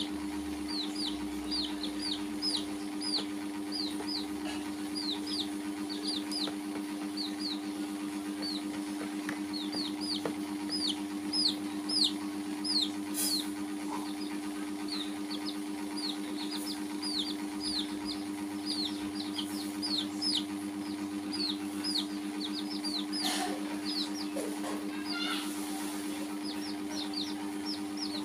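Baby chicks peeping continuously: quick, high, falling peeps, several a second, over a steady low hum.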